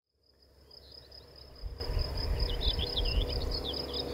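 Countryside ambience fading in from silence: a steady, high-pitched insect trill, with a few bird chirps near the middle. From about two seconds in a low rumble joins and stays, as a motorhome approaches along the road.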